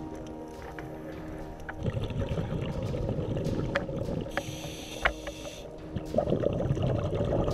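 Scuba breathing heard underwater through the camera housing: exhaled bubbles rumbling out of the regulator, a hiss of inhalation through the regulator about midway, then another rush of exhaust bubbles near the end, with scattered sharp clicks.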